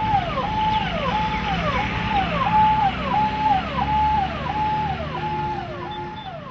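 A repeating siren-like electronic tone that glides up, holds and drops about one and a half times a second, over a low vehicle rumble. It fades away near the end.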